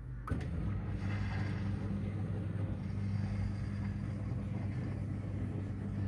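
Miele dishwasher's pump motor switching on with a click about a third of a second in, then running with a steady low hum as the wash cycle gets under way.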